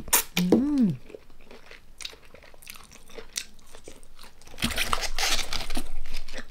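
Close-miked chewing and crunching of a mouthful of spicy som tam salad and sticky rice, with a short hummed "mm" that rises and falls in pitch about half a second in. Soft wet chewing clicks follow, then louder crunching for a second or two near the end.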